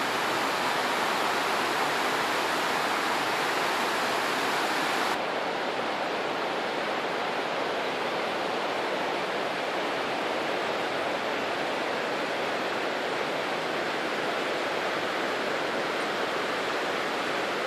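Steady rushing of running water, with no rhythm or separate events. About five seconds in it turns abruptly duller and slightly quieter, losing its hiss.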